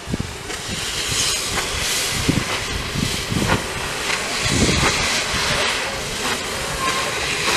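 Steam locomotive 431.032 working slowly away with its train: slow, uneven exhaust chuffs over a steady hiss of steam venting from the open cylinder drain cocks.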